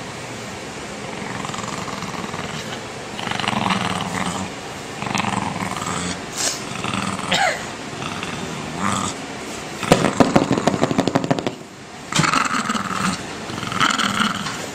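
Corgi growling in repeated short bouts when touched, a warning snarl, with the loudest and harshest, a rapid rattling growl, about ten seconds in.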